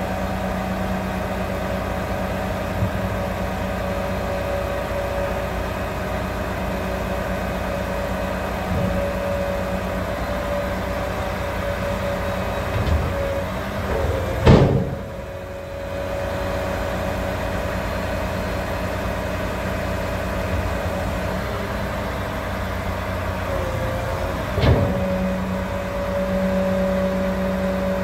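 Volvo FM 500 tipper truck's diesel engine running steadily while it drives the hydraulic tipping gear, with the tipper body lowering and then rising again. About halfway through comes a heavy clunk as the body comes down onto the chassis. Near the end a sharper knock is followed by a deeper, slightly louder engine note as the body is raised again.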